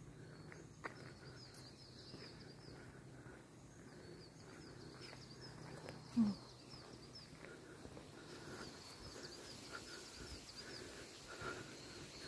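Quiet outdoor ambience with birds chirping in quick repeated series over a faint low hum. A short low sound comes about halfway through.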